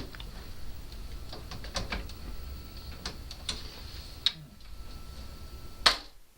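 Door lock and handle being worked: a run of light mechanical clicks and knocks, with a sharp click about four seconds in and a louder one near the end.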